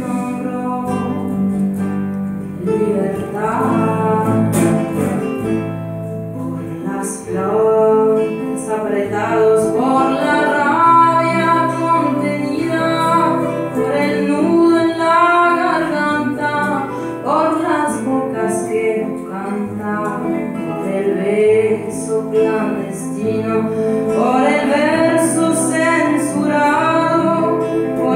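Live acoustic music: two acoustic guitars playing a song together, with a woman singing over them.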